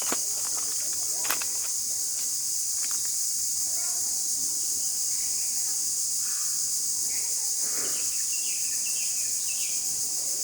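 A steady, high-pitched insect chorus runs throughout, with faint short chirps scattered over it and two sharp clicks near the start.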